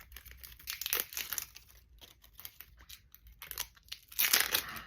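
The wrapping of a Miraball blind capsule toy being crinkled and torn open, with scattered crackles and one longer, louder tear about four seconds in.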